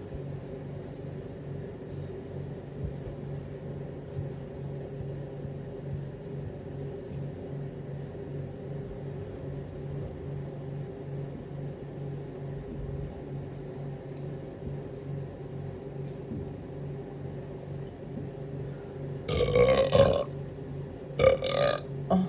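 A steady low hum, then near the end a loud, long burp, followed about a second later by a shorter one.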